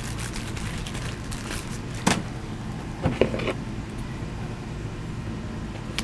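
Steady low rumble of outdoor background noise, with a sharp click about two seconds in and another short sound a second later.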